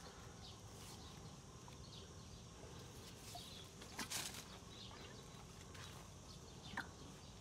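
Faint rustling and crunching of feet shifting on dry straw mulch and a garden hose, loudest about four seconds in.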